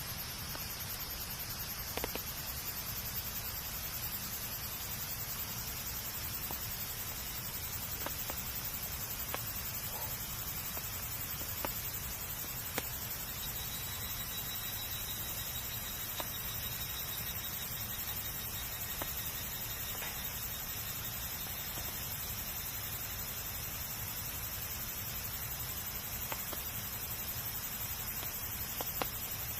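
Campfire burning with a steady low hiss, crackling now and then with sharp pops of burning wood, roughly one every second or two.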